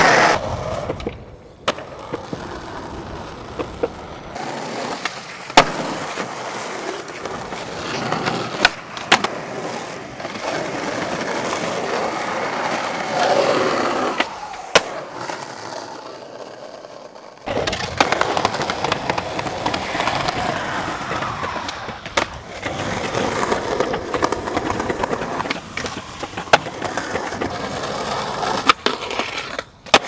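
Skateboard wheels rolling over concrete and asphalt, broken every few seconds by sharp clacks of the board striking the ground. The rolling stops near 4 s and starts again at about 17 s, as separate runs follow one another.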